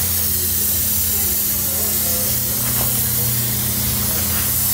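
Aerosol can of Plasti Dip spraying in one continuous, steady hiss, with a low steady hum underneath.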